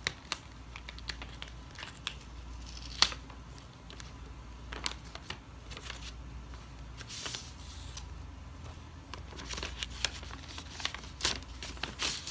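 Paper rustling and tearing as an envelope is opened and the card inside pulled out and handled, with scattered sharp clicks and crinkles; one sharp click about three seconds in, and busier rustling near the end.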